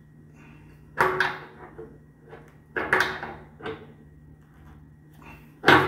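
Metal wrench knocking and clanking against a braided water hose's nut and fitting as it is tightened onto a water heater's pipe connection: a few sharp knocks, one about a second in, two close together around three seconds, and the loudest near the end.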